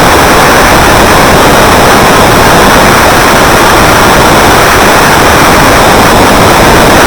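Very loud, harshly distorted steady noise with no clear tone or rhythm, holding at the same level throughout.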